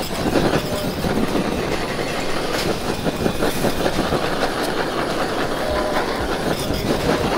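Handheld gas blowtorch hissing steadily as it browns eggs on a roti canai on a flat steel griddle, with dense crackling from sizzling on the hot plate.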